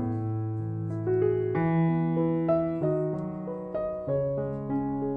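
Background piano music: a slow melody over held notes.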